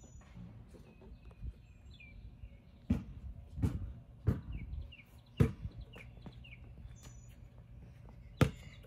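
Small birds chirping, broken by a few sharp thuds: three or four in quick succession, about two-thirds of a second apart, in the middle, and a louder one near the end.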